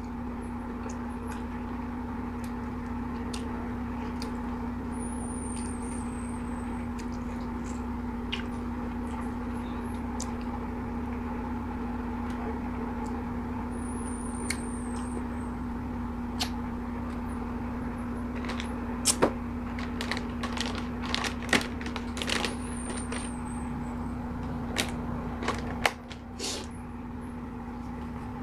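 Close-miked eating sounds of ripe mango being bitten and chewed off the skin, with scattered short wet clicks and lip smacks that come more often in the second half. A steady low hum runs underneath.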